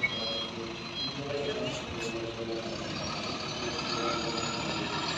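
Hino 500 box truck's diesel engine running as the truck is manoeuvred slowly, with its reversing alarm beeping through the first half-second. A faint high whine comes in about three seconds in and rises slowly.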